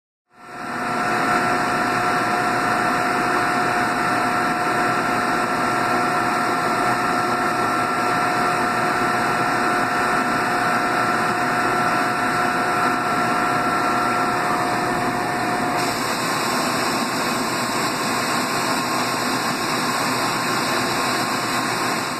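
Citizen M32 III CNC Swiss-type lathe running a machining cycle: a loud, steady machine whir with a couple of high, steady whining tones. The tones change pitch about fifteen seconds in.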